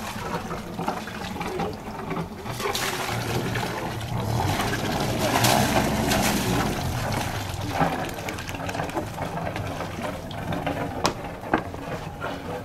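Water churning and sloshing around a sailing yacht's hull as it motors into its berth, swelling for a few seconds in the middle over a low engine hum. A few sharp knocks come near the end.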